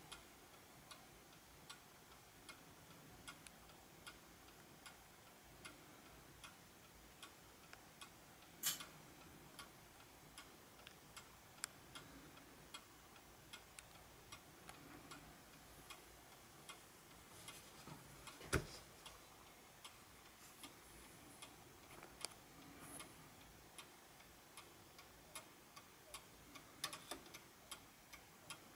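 German-made PLATO 8-day mantel clock's pendulum movement ticking steadily and faintly. There is a louder click about a third of the way through and a knock about two-thirds through.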